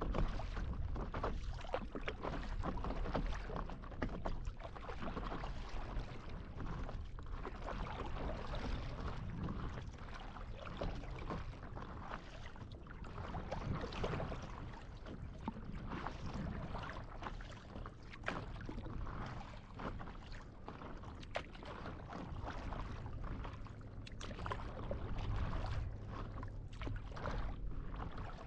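Sea water lapping and sloshing right at the microphone as it rides at the waterline, with frequent small splashes and a low rumble.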